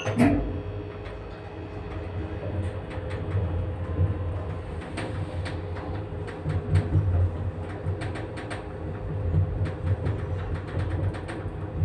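Windpol passenger lift car descending: a steady low rumble of the moving car with frequent rattles and knocks as the car shakes in the shaft, and a sharp jolt just as it sets off.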